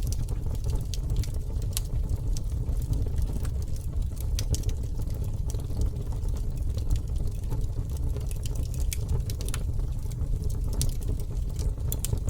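Wood campfire burning, crackling with scattered sharp pops and snaps at irregular intervals over a steady low rumble.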